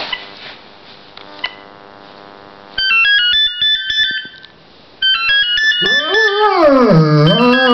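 A cordless phone handset plays a melodic beeping ringtone in two bursts. About six seconds in, a large bulldog-type dog joins in with a long wavering howl that rises and falls in pitch over the ringtone.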